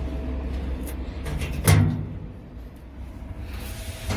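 Electrical control cabinet door of a CNC router being pulled open by hand, with one sharp thud about 1.7 seconds in, over low handling rumble.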